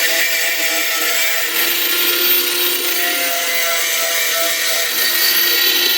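Power tool running against steel, a steady whine that shifts slightly in pitch over a high, grating noise.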